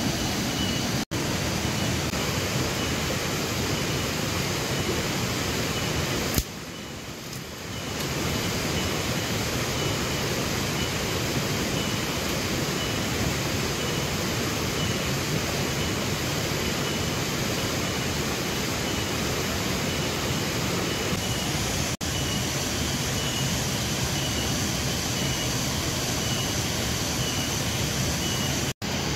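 A steady, dense rushing noise with a faint high pulsing tone, broken by a few abrupt cuts and one quieter stretch of about a second and a half.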